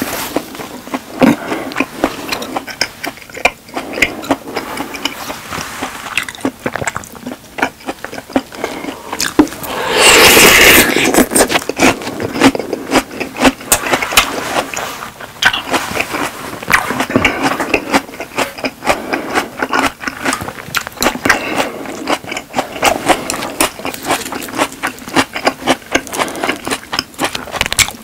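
Close-miked chewing of steak: a dense run of wet, irregular clicking and smacking mouth sounds. About ten seconds in there is a loud rushing noise lasting about a second.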